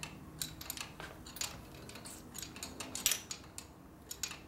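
Wrenches clicking and scraping on the pushrod adjuster jam nuts of a 1949 Harley-Davidson panhead engine: light, irregular metallic clicks, with a faint steady hum underneath.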